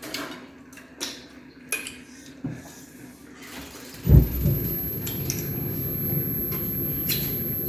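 Light clinks and taps of dishes and utensils during a meal. About four seconds in there is a loud thump, then a steady low rumble.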